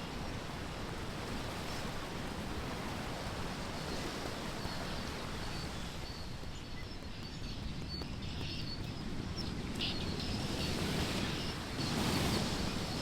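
Steady rush of a creek swollen with snowmelt, with a few faint high bird chirps over it in the middle of the stretch.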